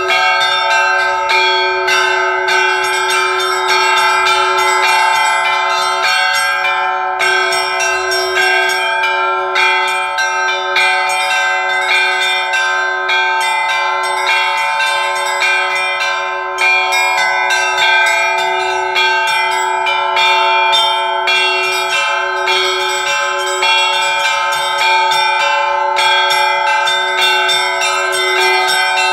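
Russian bell ringing (zvon) on a set of church bells. Small bells are struck quickly and without a break over the lingering tones of the larger bells, and the deepest tone holds steady throughout.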